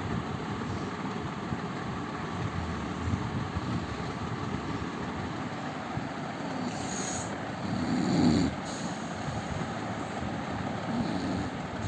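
A man snoring in his sleep: low snores every few seconds, the loudest about eight seconds in, over a steady background hiss.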